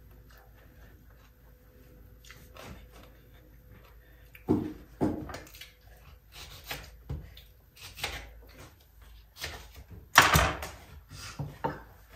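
Scattered household knocks and clatters at irregular intervals, the loudest about four and a half seconds and ten seconds in.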